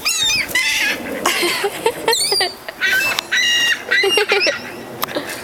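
Seagulls calling over and over in high, harsh squawks, several birds at once.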